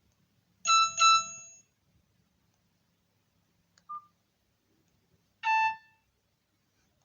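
Nokia 108 mobile phone playing short alert tones through its small loudspeaker. A quick two-note chime comes about half a second in, a short keypad beep follows around four seconds, and a single chime note sounds near the end.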